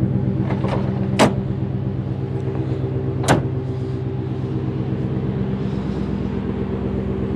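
Ford F-150 pickup idling steadily through its Flowmaster aftermarket exhaust, a deep, tough-sounding rumble. Two sharp clacks come about a second in and about three seconds in as the tailgate step is folded away and the tailgate is shut.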